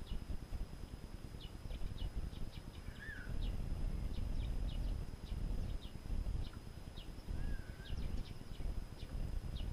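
Small songbirds giving many short, high chirps, scattered irregularly, with two brief warbled notes about three and seven and a half seconds in, over a low, uneven rumble.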